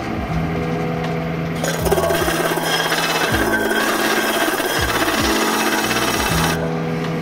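Disc sanding machine driven by a 2 HP three-phase electric motor, running with a steady hum. From about one and a half seconds in until near the end, a cast metal part is pressed against the spinning abrasive disc, giving a harsh grinding rasp.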